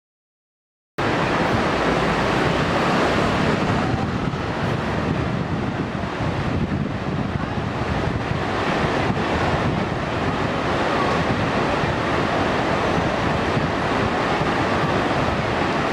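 Steady rushing outdoor noise that starts abruptly about a second in, even and unbroken, with a few faint clicks.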